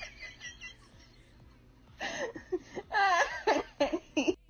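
High-pitched human voices laughing and exclaiming in short bursts: faint at first, a quiet second, then louder from about two seconds in.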